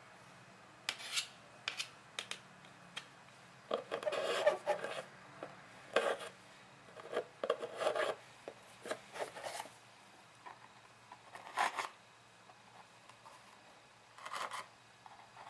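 Thin plastic box being handled: metal tweezers and fingers scraping, rubbing and clicking against it while string wicks are pulled through holes in its bottom. The sounds are irregular, with short scrapes and a few sharp clicks, and stretches of quiet in between.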